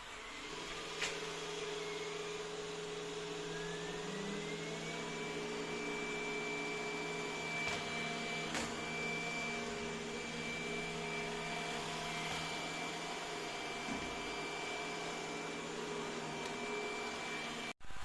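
Roomba j7+ robot vacuum running: its motors start with a steady hum, then a whine rises over about a second and a half and holds steady, with a few light clicks. The sound cuts off abruptly near the end.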